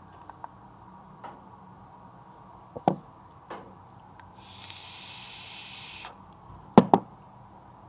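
A hiss lasting about a second and a half from vaping on a box-mod e-cigarette with its tank. A few light clicks come before it, and two sharp knocks in quick succession follow near the end.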